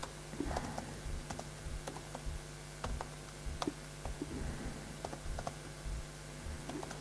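Typing on a laptop keyboard: irregular key clicks in quick runs and single taps, over a steady low hum.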